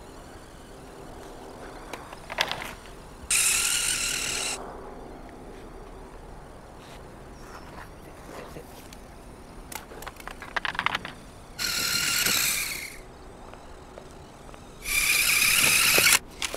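Radio-controlled toy car's electric motor whirring in three bursts of about a second each, with scattered ticks and clicks between them.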